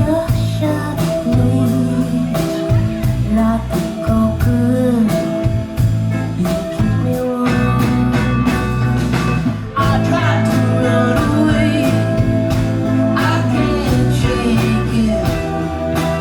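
A band playing a song: a sung vocal over guitar, bass and a steady drum beat.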